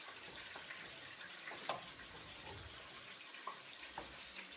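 Cou-cou (cornmeal and okra) being stirred in a pot: a steady hiss with a few short knocks against the pot.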